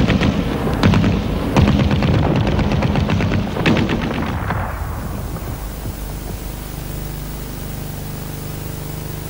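Rapid machine-gun fire in repeated bursts, fading away about four and a half seconds in to a steady low rumble.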